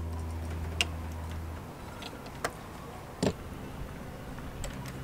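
Scattered sharp metallic clicks and taps of hand tools working on a stainless whisker stay fitting at the bowsprit, with the loudest click a little past the middle. A low steady hum stops about a second and a half in.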